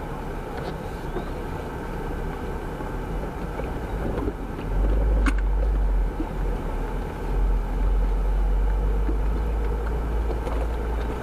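A Jeep driving, with steady engine and road rumble that grows much heavier about four and a half seconds in. There is a single sharp click shortly after.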